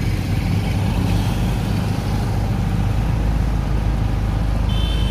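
Steady low rumble of engine and road noise inside a moving car.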